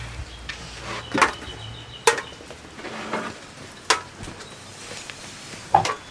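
A few separate sharp clicks and knocks, about four spread over the seconds, as a decorated metal tin box is handled and its lid worked.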